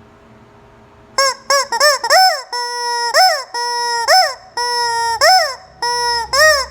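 Rubber chicken squeeze toy squawking. About a second in come four quick short squeaks, then about five long honks roughly a second apart, each rising and falling in pitch and running into a held tone.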